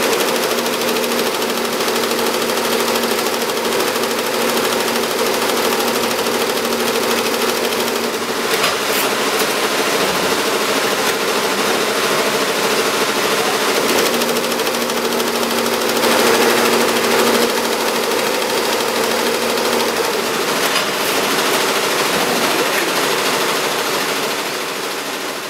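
Tajima multi-needle embroidery machine stitching at speed: a steady rapid mechanical clatter over a steady hum, fading out near the end.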